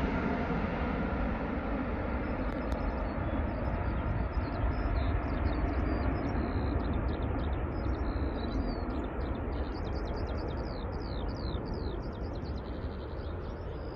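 Four-engined Airbus A380 jetliner climbing out after takeoff, its steady engine rumble slowly fading as it flies away. Small birds chirp repeatedly from a few seconds in.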